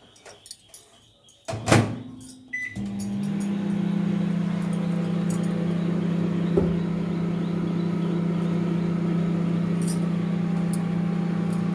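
Microwave oven door shut with a knock, a short keypad beep, then the oven running with a steady low hum that cuts off suddenly near the end.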